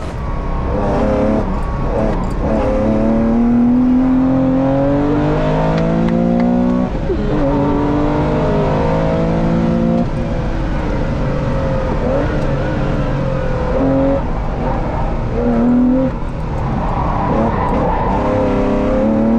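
Classic Porsche 911's air-cooled flat-six heard from inside the cabin, accelerating hard. The engine note climbs in pitch through each gear and drops at every upshift, several times over, with shorter revs about three quarters of the way in.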